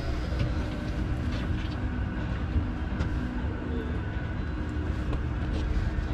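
A boat's engine running steadily: a low rumble with a steady hum above it.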